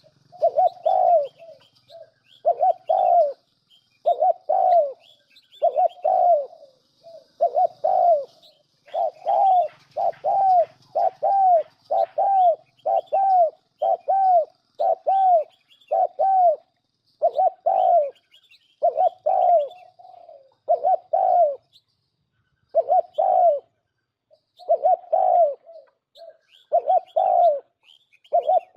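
Spotted dove cooing, a recorded lure call for bird trapping: short arching coos repeated over and over in pairs and small groups with brief pauses between. Faint high chirps of small birds sound in the background.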